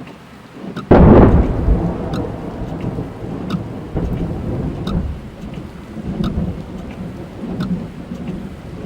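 Thunderstorm heard from inside a car: a sudden loud thunderclap about a second in, rolling on as a long low rumble, while raindrops tick on the car's body and glass.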